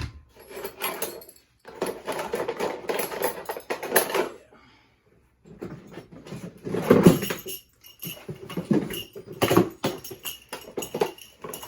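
Tools being handled in a plastic toolbox: clattering, jangling and rustling in irregular bursts, with short pauses twice.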